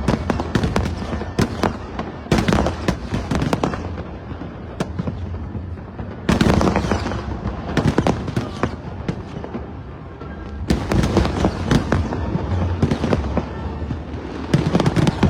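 Fireworks display: volleys of sharp bangs and crackles in dense clusters every few seconds, over a steady low rumble of shells going off.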